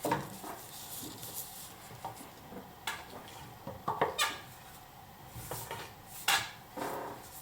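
Irregular knocks, clinks and scraping of wood and metal tools being handled at a pole lathe, with about half a dozen sharp knocks, the loudest about four and six seconds in.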